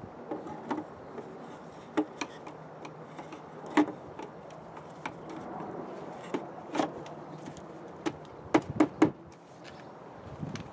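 Irregular clicks and knocks of hard plastic parts being handled as a pool cartridge filter's plastic manifold assembly is set onto the cartridge elements. The loudest knocks come about four seconds in and in a quick cluster near the end, over a faint low steady hum.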